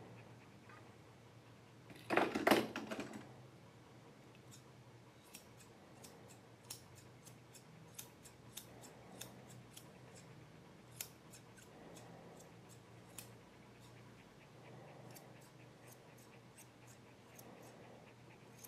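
Grooming shears snipping the hair on a Maltipoo's head, crisp snips about two a second, unevenly spaced. About two seconds in there is a louder noisy burst lasting about a second.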